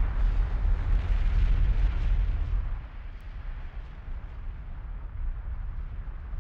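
Loud low rumble with a rushing hiss that drops to a quieter level about three seconds in.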